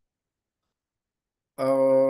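Dead silence, then about one and a half seconds in a man's voice starts a single steady held vowel, a drawn-out hesitation sound between phrases.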